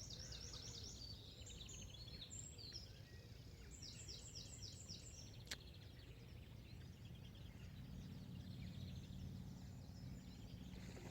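Faint birdsong: small birds sing quick runs of high chirps, with a burst near the start and another about four seconds in. There is a single sharp click about halfway, and a low steady hum comes up over the last few seconds.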